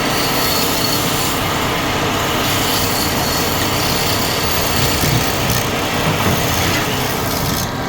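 Woodturning lathe with a tool working the spinning wood: a steady, rough scraping hiss.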